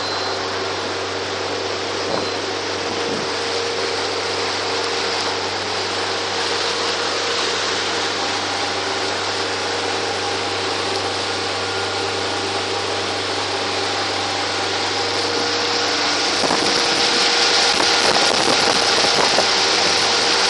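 Outboard motor running steadily with the boat under way at speed, mixed with the rush of water in the wake and wind on the microphone; the noise grows louder in the last few seconds.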